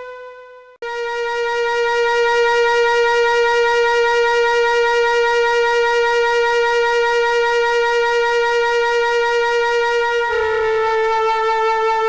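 Background music: one long held note on a flute-like wind instrument, wavering slightly. It breaks off just before a second in, comes back, and steps a little lower in pitch near the end.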